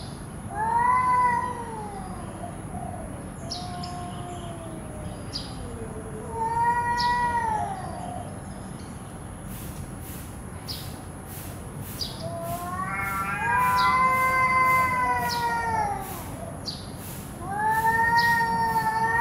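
Two domestic cats yowling at each other in a territorial standoff: long, drawn-out, wavering calls that rise and fall in pitch, four or five of them, the longest lasting about three seconds past the middle. These are warning calls before a possible fight.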